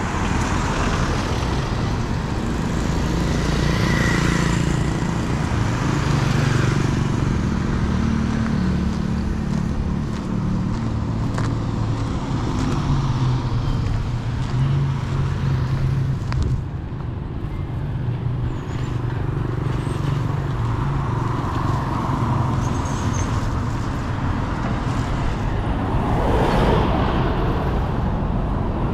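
Street traffic: motor vehicles running and passing, a steady low rumble with louder swells as vehicles go by about four seconds in and again near the end.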